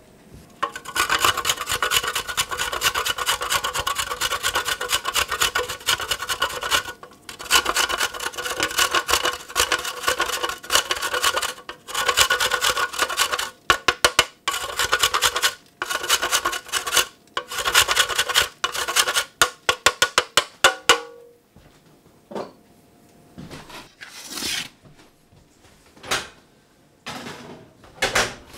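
Hard coconut cream grated on a handheld metal grater: fast, repeated rasping strokes in long runs with brief pauses. The grating stops about three-quarters of the way through, and a few scattered light knocks and taps follow.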